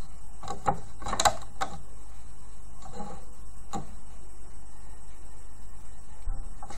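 Several light clicks and taps from a plastic loom as rubber loom bands are stretched onto its pins, bunched in the first four seconds, over a steady low hum.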